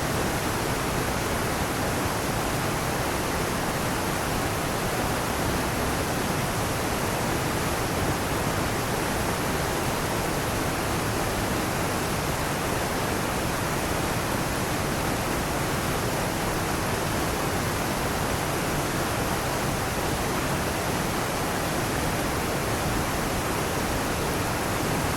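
Waterfall: water falling in a steady, unbroken rush that doesn't change.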